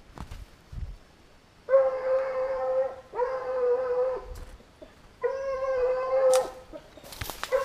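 A hunting dog baying: three long howls, each held at one steady pitch for about a second and a half, with short gaps between them.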